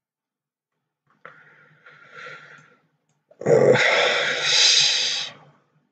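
A man's breath sounds close to the microphone: a softer breath about a second in, then a loud, long exhale at about three and a half seconds.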